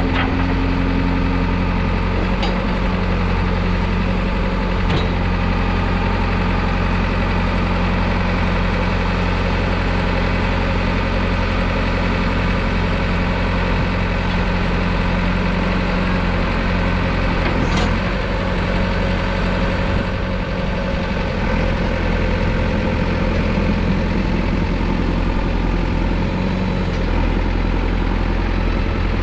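JCB 4CX backhoe loader's four-cylinder diesel engine idling steadily, with a few light clicks.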